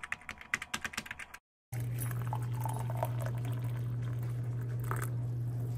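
Rapid keyboard-typing clicks for about the first second and a half, then stopping. After a short gap, a steady stream of hot water pours from an electric kettle into a ceramic mug, over a steady low hum.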